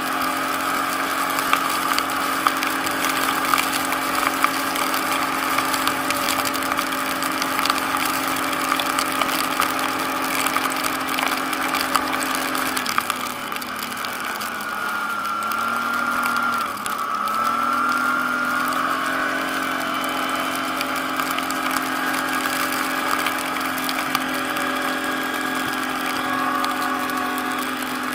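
ATV engine running at a steady speed, its revs easing off about 13 seconds in and climbing back up about 17 seconds in, with a scatter of small clicks and crackles throughout.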